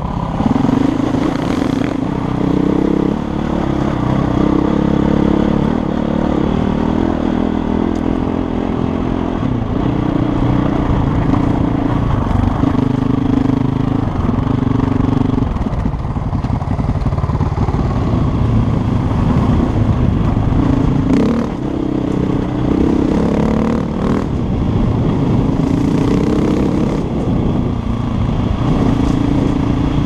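KTM 450 EXC's single-cylinder four-stroke engine running under way on a trail ride, its pitch stepping up and down with throttle and gear changes.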